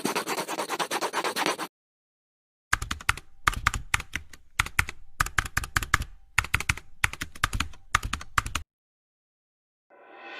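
Computer keyboard typing: a quick run of keystrokes for about a second and a half, a short pause, then irregular clicking keystrokes for about six seconds.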